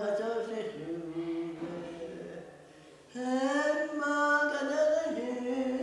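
An elderly woman singing unaccompanied, a slow song of long held notes. One phrase dies away about two seconds in and a new, louder phrase begins about three seconds in.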